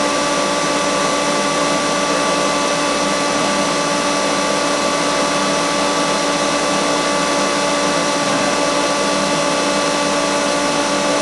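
Water tunnel's pump motor running steadily: a constant mechanical hum with several fixed tones over an even rushing noise.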